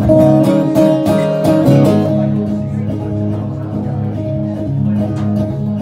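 Acoustic guitar strummed in a steady rhythm, an instrumental passage with no singing; the strokes are strongest in the first couple of seconds, then a little softer.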